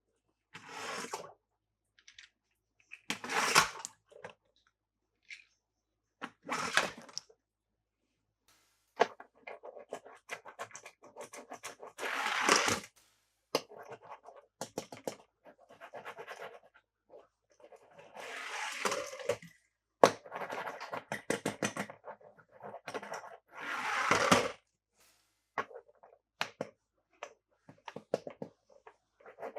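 Handling noise from a toy unboxing: irregular bursts of scratching and rustling, like packaging being rubbed or torn, with scattered sharp clicks in between.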